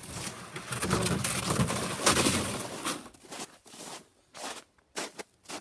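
Footsteps crunching through old, crusted spring snow, a sharp crunch about every half second from about three seconds in. Before that comes a louder, continuous rushing noise.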